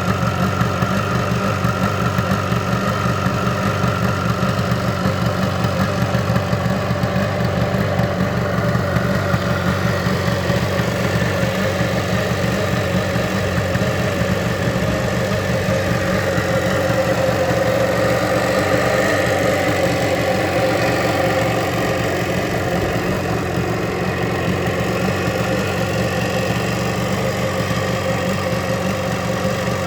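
Rebuilt Jawa 350 motorcycle engine running steadily, its note swelling a little louder and higher for a few seconds about halfway through.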